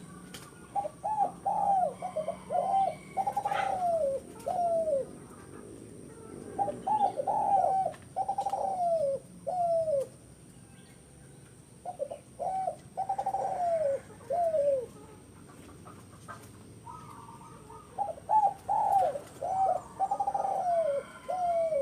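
Zebra dove (perkutut) singing: four repeated cooing phrases, each a run of quick short coos ending in a few longer falling coos, with pauses of a second or two between phrases.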